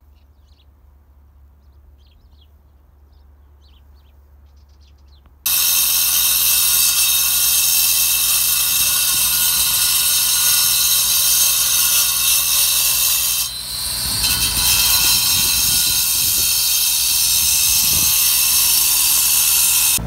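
Large angle grinder with a diamond blade cutting into a precast concrete block: a loud, steady, hissing grind that starts abruptly about five seconds in, dips briefly about halfway through, then runs on. Before it, only faint quiet.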